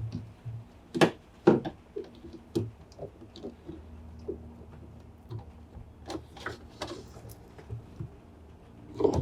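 Scattered clicks and knocks from tools and washing-machine parts being handled during reassembly, with two sharp knocks about a second in.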